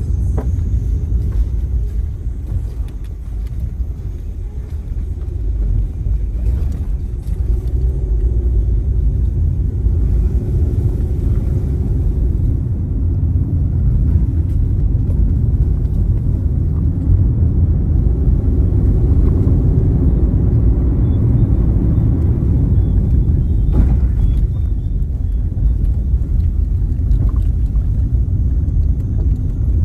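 Steady low rumble of a car's engine and tyres heard from inside the cabin while driving a rough, potholed road, with a few faint knocks in the last third.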